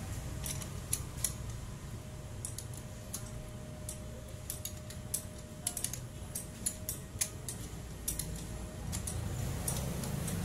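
Ratchet wrench clicking in short bursts of sharp metallic clicks, a few seconds apart, as bolts are run down into an engine block, over a steady low background rumble.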